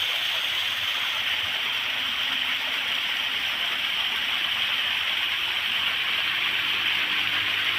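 Small stream of water flowing across a flat drainage surface: a steady, soft rush with no change.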